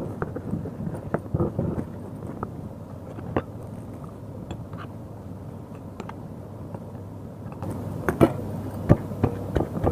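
Stone pestle pounding wet ridge gourd chutney in a stone mortar: irregular dull knocks. A spoon stirs and scrapes in the mortar in the quieter middle stretch, and heavier, louder pounding strokes start about eight seconds in.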